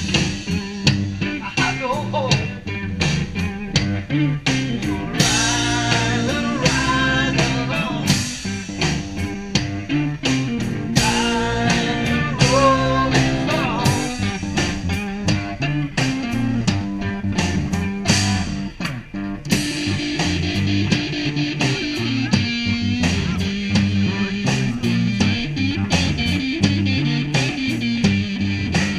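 Band music led by guitar, with a steady drum beat.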